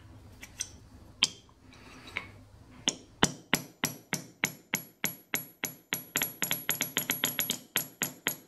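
Light, even hammer blows peening over the head of a pin being riveted into place, the pin seated on a small anvil. There are a few scattered taps first, then from about three seconds in a steady run of about three to four metallic strikes a second, each with a high ring.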